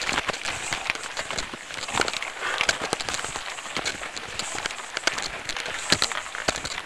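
Tyres rolling over a loose, rocky dirt track: continuous crunching and rattling with many sharp clicks and knocks from stones and the jolting mount.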